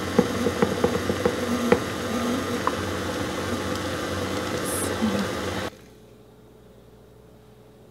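Electric tilt-head stand mixer running steadily as its paddle beats buttercream, with a few sharp clicks in the first two seconds. It is switched off abruptly about six seconds in.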